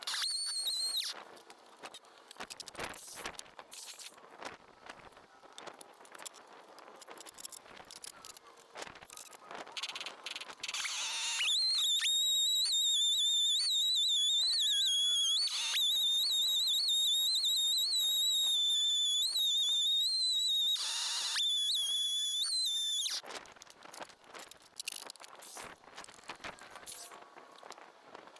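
Husqvarna 572XP chainsaw on a chainsaw mill running at high revs with a steady high whine that wavers slightly under load. It runs for about twelve seconds in the middle, dipping briefly twice, with a short burst near the start. Between the runs there are only scattered light clicks and knocks.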